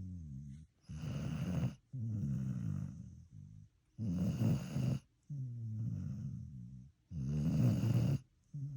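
Snoring in a steady rhythm, about three breaths roughly three seconds apart. Each breath is a breathy rush followed by a lower buzzing snore that sinks in pitch.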